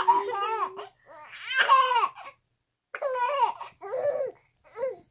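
High-pitched laughter and giggling squeals in about five short bursts, a baby laughing along with another person.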